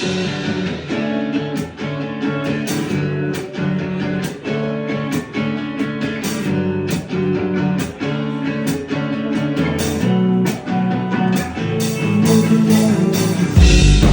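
Live band playing the slow opening of a song: guitar picking and strumming a steady pattern of chords, with a heavy low bass coming in just before the end.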